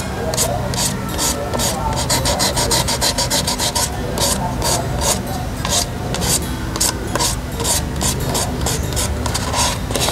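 Fine wet-and-dry abrasive paper (600 grit) being rubbed back and forth by hand over a plastic scooter body panel, in quick regular strokes several a second. It is wet sanding to level dried touch-up marker paint over a scratch.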